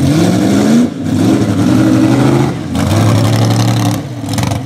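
Chevy mega truck's engine revving three times as it works through the mud, the pitch climbing with each push of the throttle and dropping sharply when it is let off.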